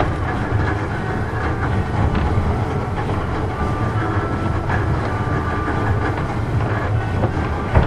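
Nishi-Shigi Cable funicular car Ko-7 No. 8 running downhill, its wheels rumbling steadily on the rails, with short faint squeals and scattered clicks. A sharp knock near the end.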